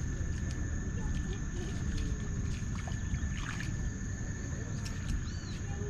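Outdoor mangrove-shore ambience: a low, uneven rumble of wind on the microphone, with a steady high-pitched insect drone and a few faint clicks.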